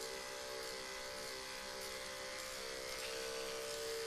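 Electric dog-grooming clippers running with a steady buzzing hum as they shave a dog's belly fur, a little louder near the end.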